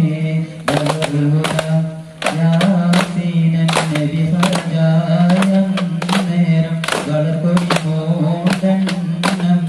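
Voices singing a chant-like song over sharp frame-drum (daff) strikes about twice a second, the music of a daff muttu dance.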